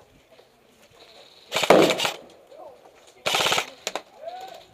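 Airsoft guns firing two short full-auto bursts of rapid shots, each about half a second long, the first about a second and a half in and the second near three and a quarter seconds.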